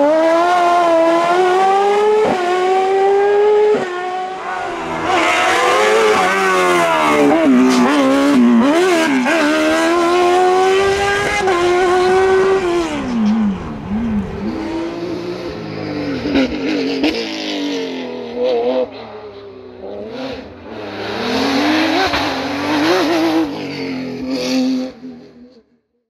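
Race car engine revving hard, its pitch climbing through the gears and dropping on downshifts several times, then cutting off just before the end.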